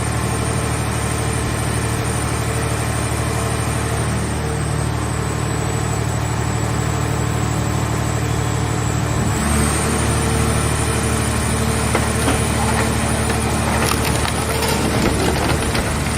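Mobile car scrap baler running, its engine and machinery sounding steadily. About nine seconds in the sound shifts and grows a little louder, and near the end comes a dense crackling and crunching of a car shell being crushed.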